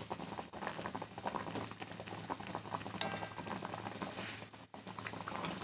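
Carp pieces in asem-asem broth bubbling at a boil in a wok, a steady patter of small pops and crackles.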